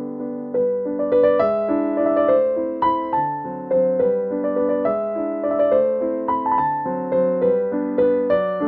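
Background piano music: a gentle melody of single struck notes at an even pace, each dying away.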